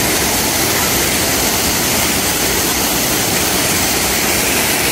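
Steady, loud rush of fountain water jets arching overhead and splashing down onto wet pavement, heard from inside the tunnel of water.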